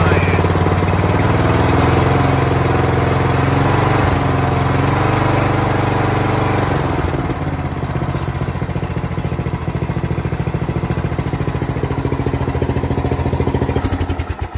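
Briggs & Stratton Power Built 19.5 hp lawn tractor engine running at a steady speed, its pitch wavering slightly in the first several seconds before settling. It shuts off at the very end.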